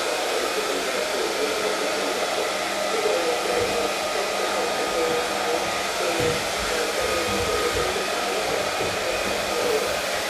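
Hand-held hair dryer running steadily: a constant blowing rush with a faint steady whine in it.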